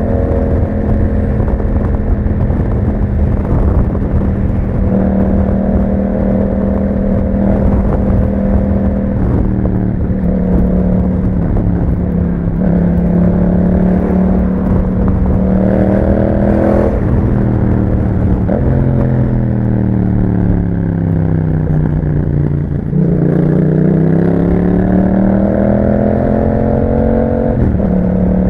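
Yamaha MT-07's parallel-twin engine through an aftermarket Akrapovic exhaust, running while being ridden: it holds steady revs, climbs briefly about halfway through, slows down from about two-thirds of the way in, then revs up again near the end.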